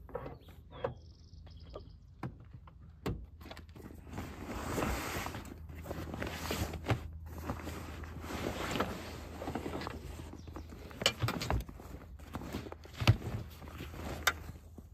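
A large nylon duffel bag being dragged out of a pickup's side storage compartment: fabric rustling and scraping against the compartment, broken by several sharp knocks and clunks, the first as the compartment door opens.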